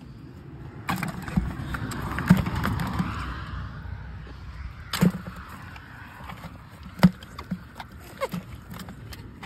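Hassar (armoured catfish) being handled out of a cast net and dropped into a plastic bucket of fish: a handful of sharp, irregularly spaced knocks. A rushing noise swells and fades in the first few seconds.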